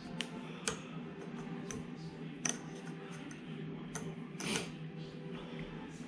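Scattered light clicks and taps of small metal parts and a hex key being handled while a shooting rest's joystick mechanism is taken apart, about six separate clicks, the loudest about two and a half seconds in. A steady low hum sits underneath.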